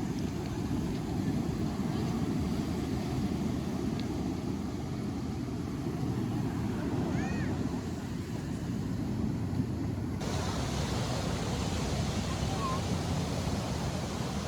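Ocean surf washing on the shore with wind rumbling on the microphone, a steady noisy wash heaviest in the low range. About two-thirds of the way through, the sound turns suddenly brighter and hissier.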